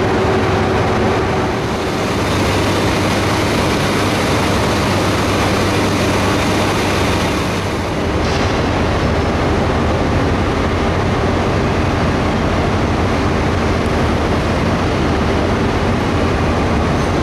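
Diesel engine of a Grand Central HST Class 43 power car running, a steady deep drone, with a short dip and a change in the sound about eight seconds in.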